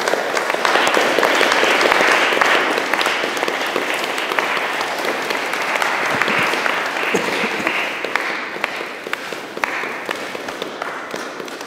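Audience applauding in a hall, building quickly and then slowly tapering off.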